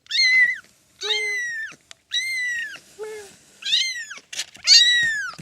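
Kitten mewing over and over: about five short, high-pitched mews, each rising and then falling, with a couple of lower, shorter squeaks between them.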